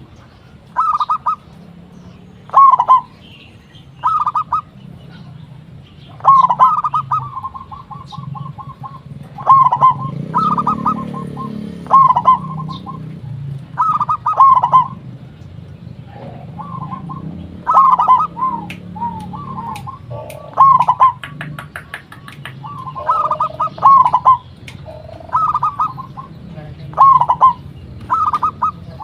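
Zebra doves cooing: short rolling coos repeat every one to two seconds, sometimes running together or overlapping, over a low steady hum.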